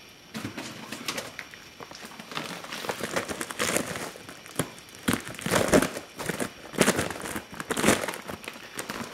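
Dry cat food bag crinkling as it is handled, in irregular rustles that get louder in the second half.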